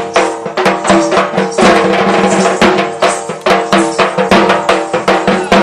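Live folk percussion: a barrel drum (dhol) beaten in a quick, steady run of strokes with small hand cymbals, over a steady held note.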